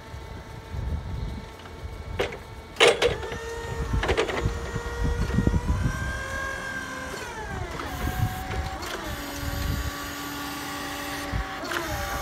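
Clark electric forklift's electric motors whining as it drives, several steady tones that slide down in pitch around the middle and then hold. A few sharp clicks come about two to three seconds in.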